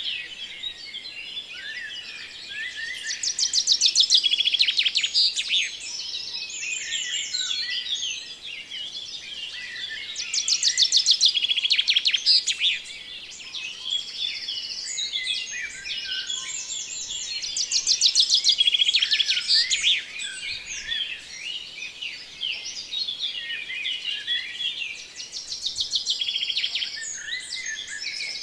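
Ambience of many songbirds chirping and calling together, with a louder rapid trill swelling up roughly every seven seconds.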